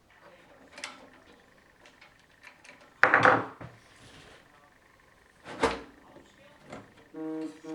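Knocks and clatter of a computer case and its parts being handled, with a loud bang about three seconds in and another a couple of seconds later.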